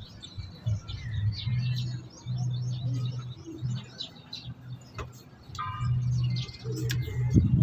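Birds chirping and calling in many short, quick notes, over a low rumble that comes and goes in stretches of about a second.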